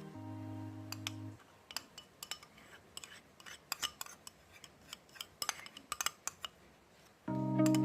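Kitchen utensils clinking and tapping against dishes in a run of irregular sharp clicks, between stretches of background music.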